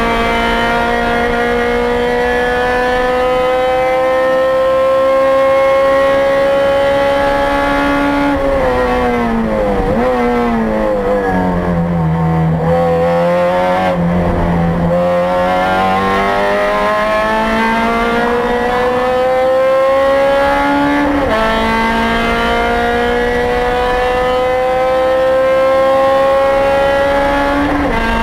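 2008 Honda Civic Si race car's four-cylinder engine at racing pace, heard from inside the car. The pitch climbs steadily under full throttle, then falls in steps through downshifts under braking about eight to ten seconds in, and stays low through a slow corner. It climbs again, with pitch drops at upshifts about 21 and 28 seconds in.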